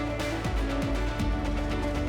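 Background music with sustained tones, a low bass and a steady beat.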